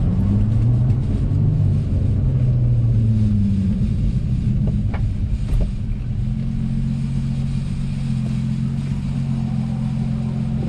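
Infiniti coupe's V6 engine heard from inside the cabin as the car pulls away through the gears of a manual gearbox. Its pitch rises and drops with each gear change over the first few seconds, then holds steady as the car cruises.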